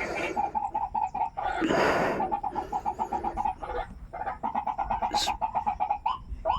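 Rail-family bird (burung mandar) calling: a fast run of clucking notes, about eight a second, broken once by a short burst of noise. Near the end it changes to slower, downward-curving notes, about two a second.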